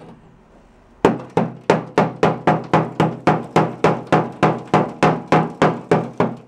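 Hammer beating on the steel floor of a VW Type 2 bus battery tray, knocking loose rusted metal and old filler. After about a second of quiet, it strikes in a steady run of sharp blows, about three a second.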